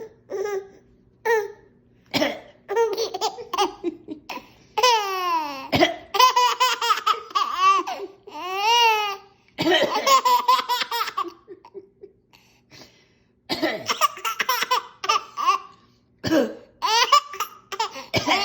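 A baby laughing in repeated bouts of short, coughing laughs, with brief pauses between bouts and one long falling squeal about five seconds in; the parent takes it for a fake laugh.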